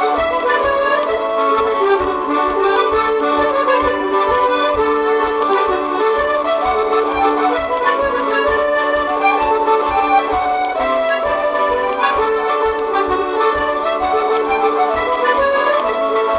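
Two-row button accordion playing a tune: a moving melody over a steady rhythmic pulse in the bass.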